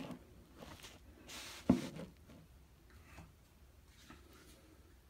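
Handling sounds: one sharp knock a little under two seconds in, then faint small clicks and rustles.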